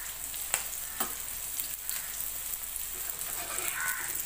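Fish steaks shallow-frying in oil in a tawa: a steady sizzle with scattered crackles. A metal ladle clinks against a steel pot of fish curry as it is stirred, with sharp clinks about half a second and a second in.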